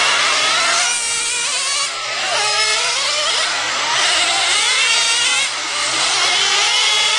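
Small engines of radio-controlled race cars running on the track: several high-pitched engine notes rising and falling as the cars accelerate, brake and pass, with brief dips in loudness twice.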